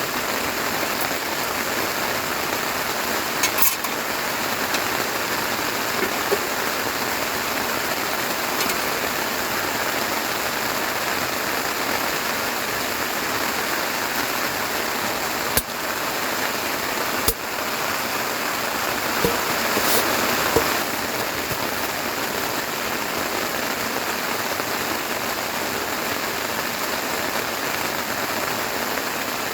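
Rain falling steadily, with a few sharp taps or knocks scattered through it.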